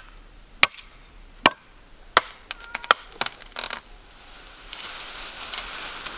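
A blade chopping into a bamboo stalk: four sharp strokes about 0.7 s apart, then a few lighter knocks. Near the end comes a longer rustling noise.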